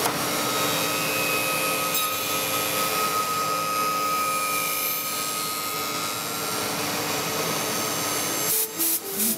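Milling machine running with a steady whine as its cutter shapes an acetate eyeglass temple, with a few short breaks near the end.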